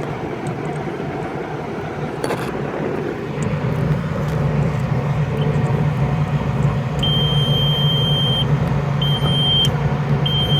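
Truck's low air pressure warning buzzer sounding in high steady beeps, one long beep about seven seconds in followed by two shorter ones, over a steady low hum. The buzzer works again because the missing fuse for the low-pressure sensor circuit has been replaced.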